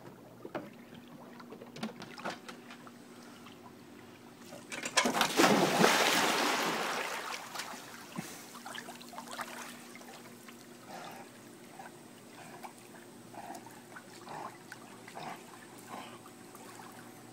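A large dog jumps into a swimming pool with one loud splash about five seconds in, which dies away over a couple of seconds. After it comes softer sloshing and lapping of water as the dog swims.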